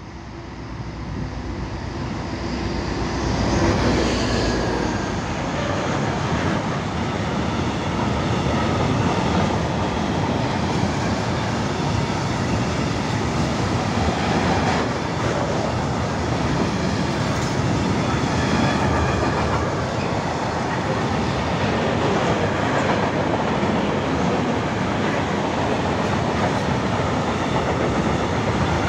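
Freight train running through the station without stopping: it grows louder over the first few seconds as it approaches, then a long steady noise of loaded freight wagons rolling past close by.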